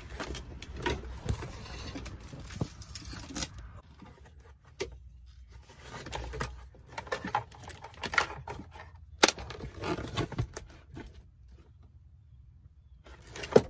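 Car floor carpet and its foam underlay being pulled and handled by hand: irregular rustling and scraping, with scattered sharp clicks and knocks.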